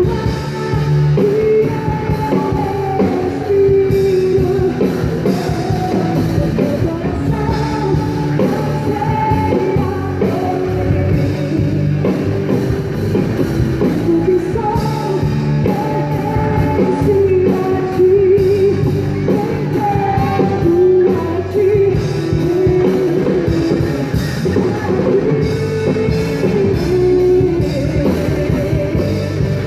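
Live rock-style Christian worship band playing, with drum kit and electric guitar under a wavering lead melody.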